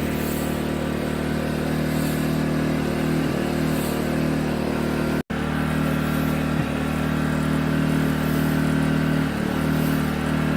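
Gentrax EC800i 800 W inverter generator running steadily at a constant engine speed, with a momentary break in the sound about halfway through.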